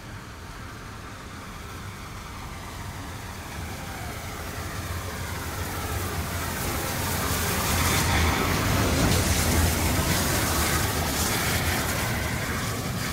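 Steam-hauled train headed by GWR Castle class 4-6-0 7029 Clun Castle, arriving and drawing up to and past the listener. It grows steadily louder to a peak about eight to ten seconds in, then eases off slightly.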